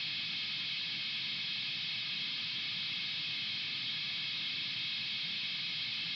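Steady electronic hiss like filtered white noise, with a faint low rumble beneath it: a noise texture in a home-produced experimental electronic track.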